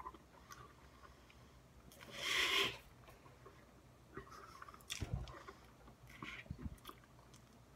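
Mouth sounds of a man working a large wad of bubblegum and trying to blow bubbles: a breathy puff of air about two seconds in, then scattered small wet clicks and pops from the gum at his lips in the second half as the bubbles break.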